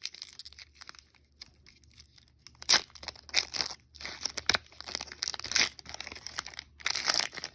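A trading card pack's wrapper being torn open and crinkled by hand, in irregular bursts that start a couple of seconds in after a near-quiet moment.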